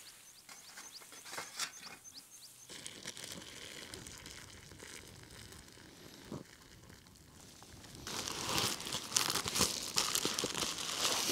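Water poured from a small pot into a plastic bag of dried vegetable rice. From about eight seconds in, the plastic bag crinkles loudly as it is handled.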